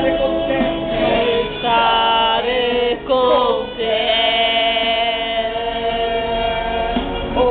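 Men singing a worship song, with long held notes in the second half.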